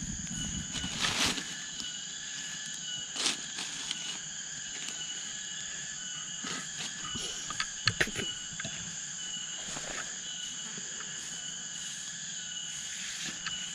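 Steady high chirring of an insect chorus, with a few short sharp clicks or snaps: about a second in, about three seconds in, a pair around eight seconds and one around ten.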